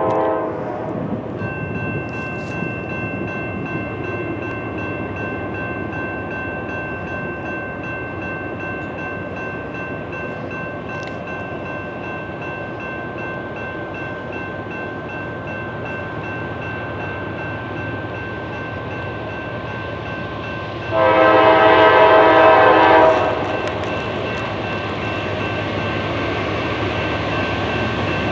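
NEG electronic crossing bell starts ringing about a second and a half in and keeps ringing steadily as the crossing activates. About 21 seconds in, the horn of the approaching GE AC44CW diesel locomotive sounds once for about two seconds, a chord of several pitches.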